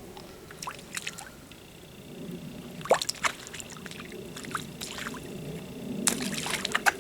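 A fish splashing at the surface of pond water, a few short splashes about three seconds in and a quicker cluster near the end.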